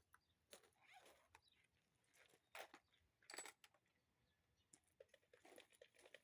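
Near silence, with a few faint, scattered clicks and rustles.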